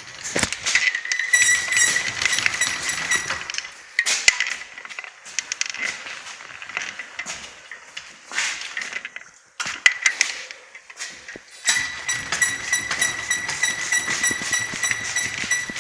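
Riga-13 moped engine giving off a high-pitched squeak: a thin, steady, rapidly pulsing whine that sounds for a couple of seconds near the start and again for the last few seconds. Between these stretches come scattered knocks and rattles. The cause of the squeak is unknown.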